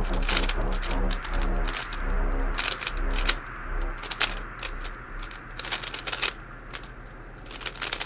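Speed cube being turned: bursts of sharp plastic clicks as the layers snap round. Background music plays under the clicks for the first few seconds, then fades out.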